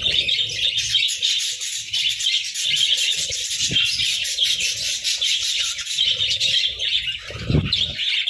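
A group of budgerigars chattering and chirping continuously, a dense warbling of many overlapping calls, with a couple of low thuds partway through and near the end.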